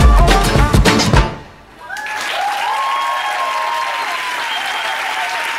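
Dance music with a heavy beat stops abruptly about a second in; after a short lull the audience breaks into steady applause, with a few cheering voices over it.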